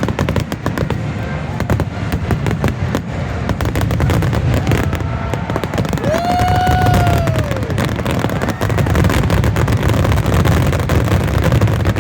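Fireworks going off in a rapid, continuous barrage: many close-spaced bangs and crackles over a steady low rumble. About six seconds in, a long tone rises and then falls.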